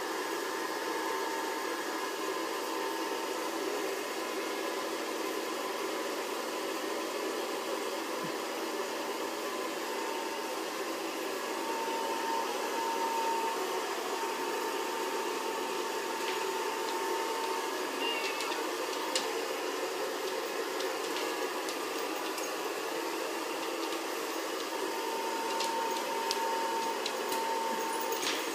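Steady hum of a running appliance motor, with a few short sharp clicks scattered through the second half.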